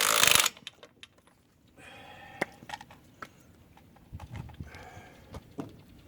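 An aerosol spray can hissing in a long, loud spray that cuts off about half a second in. Faint clicks and knocks of handling follow.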